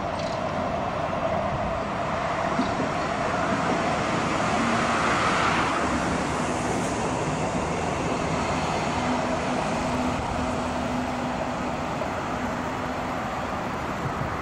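Articulated Stadtbahn tram running past on street track: a steady rolling rumble of wheels on rail that swells as it comes close and eases as it draws away, with a faint steady motor hum in the second half.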